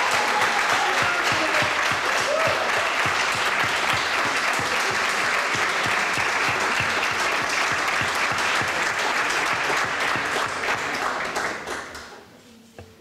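Audience applauding, a steady clatter of many hands clapping that dies away about a second before the end.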